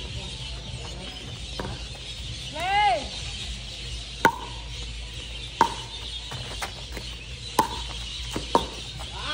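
A pickleball rally: paddles striking the hard plastic ball with sharp, ringing pops, four of them a second or two apart in the second half. A short rising-and-falling call is heard about three seconds in, over a steady high hiss.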